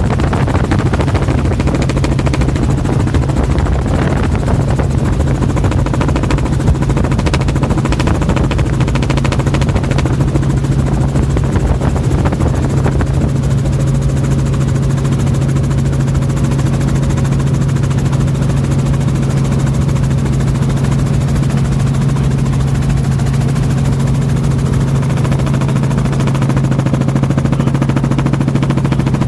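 Small helicopter in flight heard from inside the cabin: a loud, steady drone of rotor and engine with no change in pitch.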